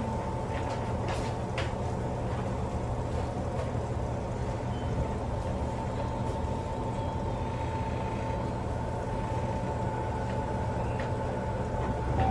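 Steady hum inside a standing electric train, its onboard equipment running with a constant tone while the car stays still. A few faint clicks about a second in, and the sound grows louder near the end.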